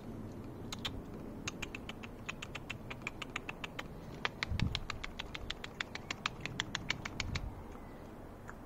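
A person clicking the tongue or smacking the lips to call a cat: a quick run of sharp clicks, about five a second, starting about a second in and stopping near the end, with a low bump about halfway.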